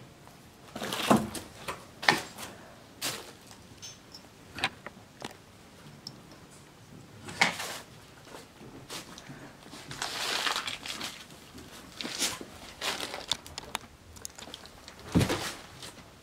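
Footsteps moving through a cluttered floor, with irregular crinkling and crunching of scattered paper, cardboard and plastic and a few knocks, the loudest knock near the end.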